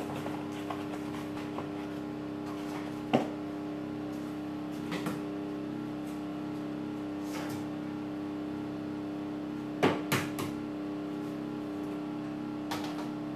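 Two eggs being cracked and tipped into the bowl of a kitchen cooking robot. A few sharp knocks, the loudest about three seconds in and a quick pair near ten seconds, over a steady low hum.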